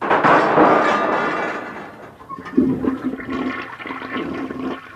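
Toilet flushing: a loud rush of water starts abruptly and fades over about two seconds. From about two and a half seconds it gives way to a steadier, pitched gurgling as the water settles and refills.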